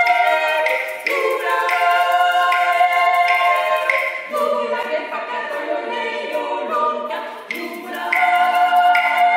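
Four women singing a cappella in harmony, with long held notes. The singing thins out briefly about seven seconds in, then comes back in full.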